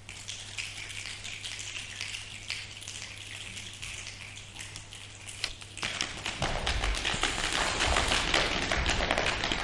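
Rain made as a live sound effect: a light pattering of drops that swells suddenly into a loud, dense downpour about six seconds in.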